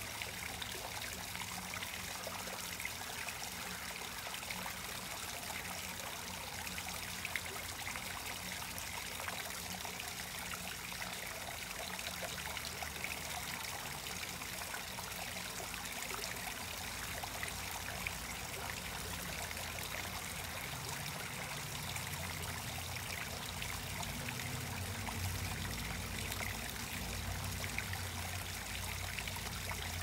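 Small garden-pond waterfall trickling steadily into the pond. A low hum grows stronger about two-thirds of the way through.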